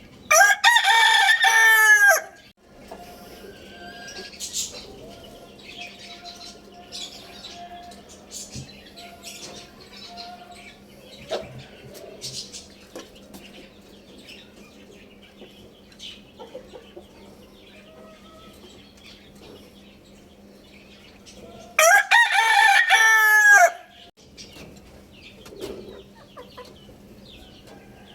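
Rooster crowing twice, each crow a loud call about two seconds long, the first right at the start and the second about 22 seconds in. Faint clucking and short chirps fill the time between.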